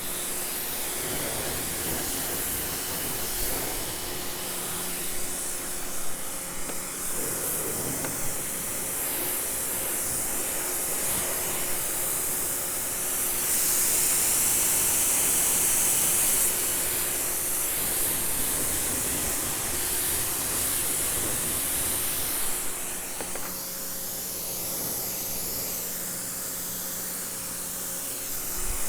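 Prymax 3000 PSI electric pressure washer spraying a car: the steady hiss of the water jet with a steady hum underneath. The spray grows louder for about three seconds near the middle.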